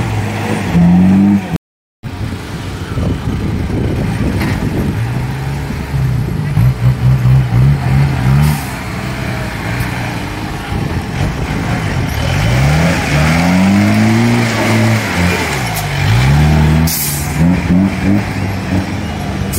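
Off-road jeep engine revving hard and dropping back, over and over, as it climbs a dirt track, with a run of quick throttle blips around seven seconds in and a rising rev near the end. The sound cuts out briefly about two seconds in.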